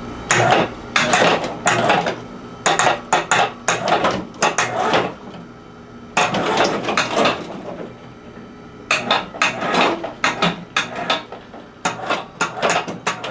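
Metal clanking and rattling in bursts of rapid knocks as the 1970 Karmann Ghia body is lifted off its chassis, with a pause of a few seconds partway through.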